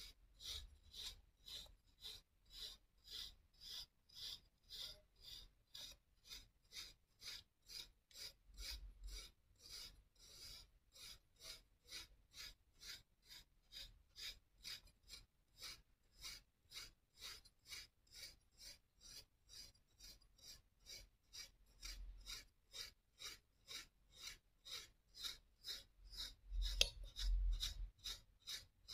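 A metal fork raking repeatedly through a block of kinetic sand, one short scrape about twice a second. The last few strokes near the end are louder.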